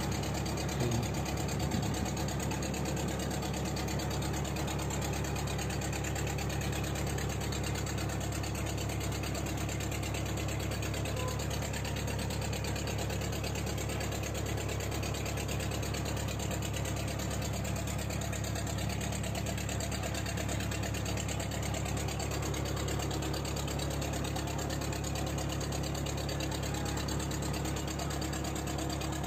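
Fishing boat's engine running steadily, with an even low hum that does not change.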